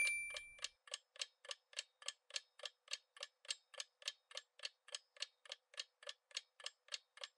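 Quiz countdown-timer sound effect: a bright chime rings out at the start and fades within the first second, then a steady clock-like ticking follows, about three to four ticks a second.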